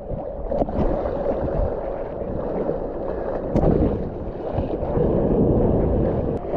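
Wind buffeting the microphone as a continuous low rumble, mixed with the wash of surf.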